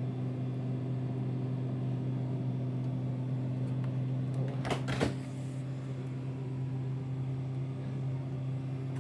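Polytron PRM 28 two-door refrigerator running with a steady low compressor hum, with a couple of short knocks about five seconds in.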